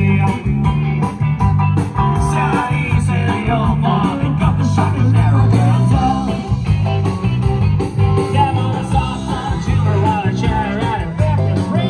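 Live rock band playing through the PA: electric guitars, bass guitar and a drum kit, with a singer, loud and continuous.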